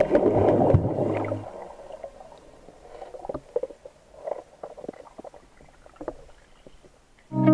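Muffled sound of water heard from below the surface, with scattered bubble pops and water movement as a swimmer dives down through bubbles. Background music plays for about the first second and a half, then cuts off.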